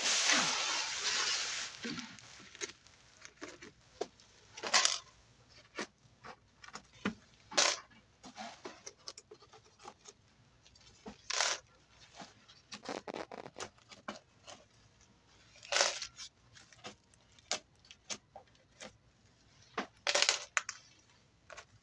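Plastic sheeting rustling and crinkling under hands, loudest in a long rustle over the first two seconds, then in short scattered crackles with small handling ticks as pins are pulled from the pinned-out doily.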